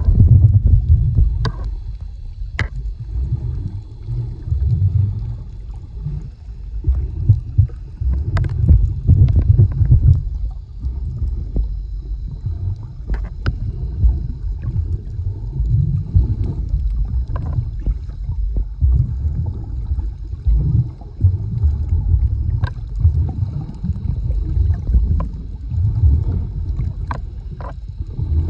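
Muffled underwater rumble and sloshing of water moving around a submerged camera, rising and falling in surges as the snorkeler swims, with scattered sharp clicks.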